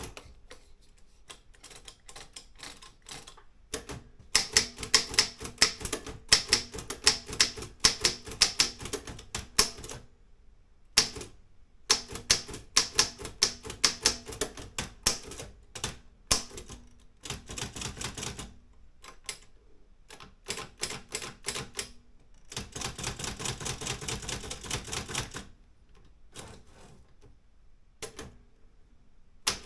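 Olympia M8 manual typewriter being typed on: quick runs of sharp key strikes with a few short pauses, and a denser, steadier rattle for about three seconds past the middle.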